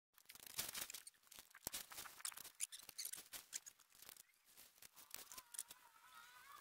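Faint rustling and crinkling of nylon tent fabric with scattered clicks of tent poles as a dome tent is spread out and set up. A thin, wavering squeak comes in about five seconds in.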